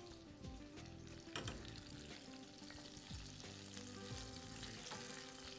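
Breaded chicken cordon bleu frying over low heat in a pan: a faint, steady sizzle, with one light knock about one and a half seconds in.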